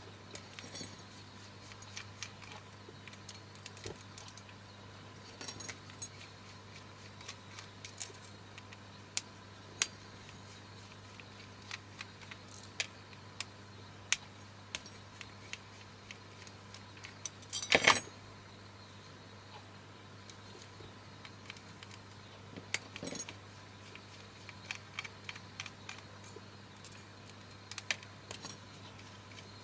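Scattered small metallic clicks, taps and scrapes as a small screwdriver pries at the metal frame and glued filters of a projector's prism block, with a louder clatter about eighteen seconds in, over a steady low hum.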